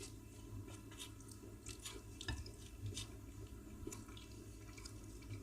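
Faint wet eating sounds: soft scattered clicks and squelches of wheat fufu and egusi soup being handled and chewed.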